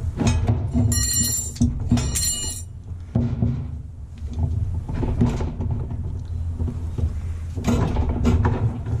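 Knocks and clunks of metal parts as the transmission is worked out of a Whirlpool washer, with two short high squeals or rings about one and two seconds in.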